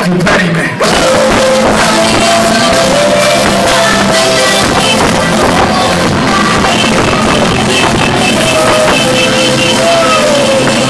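Loud pop dance backing track played through a PA, with live singing into a microphone over it. There is a brief dip in the music just under a second in.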